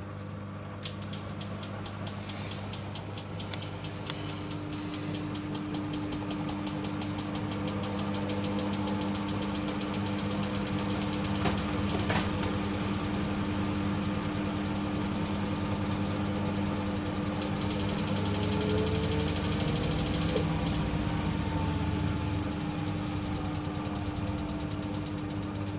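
Miele W1 front-loading washing machine's drum speeding up into a spin, the machine's running noise growing louder over the first several seconds and then holding steady. A fast even ticking runs through the first half and comes back briefly later, and near the end the motor whine shifts in pitch.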